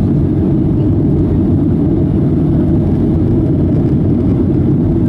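Boeing 757-200 cabin noise in the climb just after takeoff: its twin jet engines at takeoff power, with the rush of airflow, heard from inside the cabin as a steady, deep rumble.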